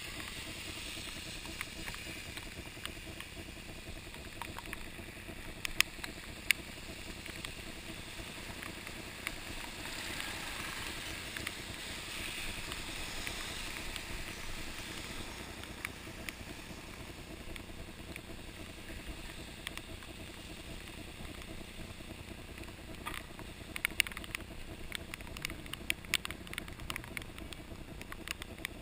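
Steady wash of a mountain bike rolling over a wet road in the rain, with a hiss that swells around the middle. Scattered sharp clicks and knocks come twice near the start and then in a cluster near the end.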